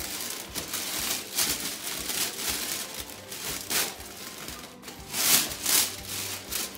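Gift-wrapping paper crinkling and tearing in several sharp rips, the loudest two a little past five seconds in, over faint background music.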